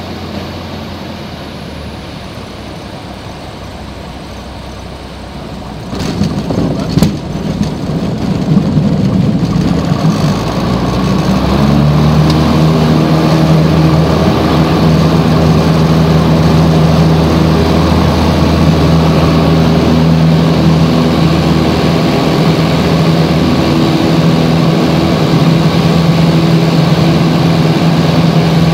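Piper PA-28's piston engine and propeller heard from inside the cabin, running at low power, then opened up to full power for takeoff about six seconds in. The sound builds over several seconds and settles into a loud, steady engine note through the takeoff roll and climb-out.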